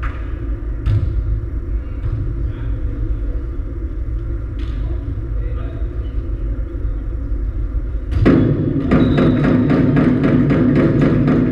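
Hall ambience with a few sharp volleyball hits over a low rumble. About eight seconds in, loud, fast, evenly spaced percussive beating starts up and keeps going, several strokes a second.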